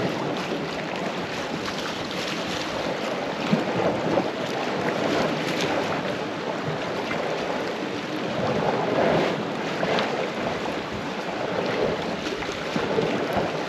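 Sea washing against cliff-foot rocks in a light swell: a steady rush that surges every few seconds.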